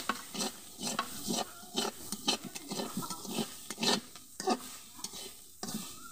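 A flat metal spatula scraping and stirring ivy gourd leaves, onion and garlic in a metal karahi, about two scrapes a second, over a light sizzle of frying in oil.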